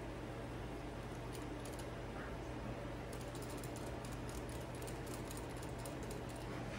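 Guinea pigs drinking from water-bottle sipper tubes: fast, light ticking of the tube, a few ticks at first and then a dense run from about three seconds in. A steady low hum runs underneath.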